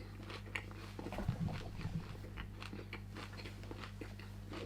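A person chewing a mouthful of lettuce wrap filled with rice, pork belly, ssamjang and fried garlic, with many small crunches and wet mouth clicks.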